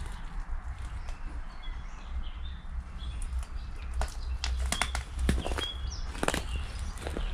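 Footsteps, irregular sharp steps, with a few short bird chirps over a steady low rumble.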